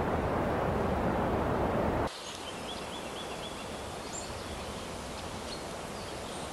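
Wind rushing over the microphone, cut off abruptly about two seconds in. Then a quieter outdoor ambience with a few faint, short, high chirps.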